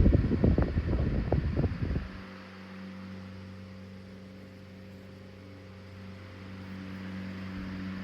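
Emerson 12-inch oscillating table fan (model 29646, brass blades) running. For about the first two seconds its airflow buffets the microphone, then it drops to a steady motor hum as the fan swings away, and the gusting returns at the very end.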